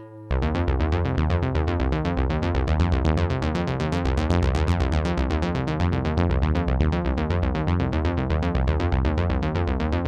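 Sequential Prophet 12 synthesizer playing a fast, evenly pulsing sequenced electronica pattern of short notes over a heavy bass, starting abruptly a fraction of a second in.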